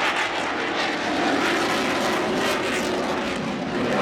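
Fixed-wing aircraft in flight, its engine noise steady and loud.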